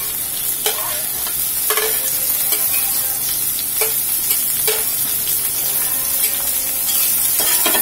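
Sliced bitter gourd scraped off a plate with a metal spatula into hot oil in an iron kadai, sizzling steadily as it fries, with several short scrapes of the spatula.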